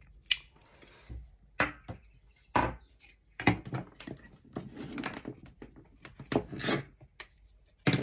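Plastic light switch, downlight and electrical cables being handled and set down on a tabletop: a scattered series of light clicks and knocks with cable rustling.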